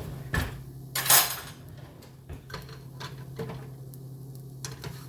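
Kitchen clatter: knocks and clinks of cutlery and dishes being handled, with a louder scraping rush about a second in, over a steady low hum.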